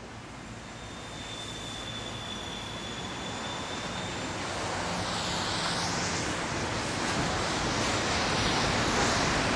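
Rushing noise of an approaching engine, swelling steadily louder, with a faint high whine during the first half.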